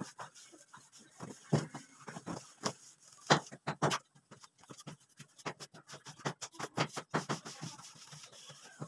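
Hand plastering tools, a float and trowel, scraping and tapping against a concrete ceiling as cement plaster is worked on. Irregular scrapes and sharp clicks, with two louder knocks a little past the middle.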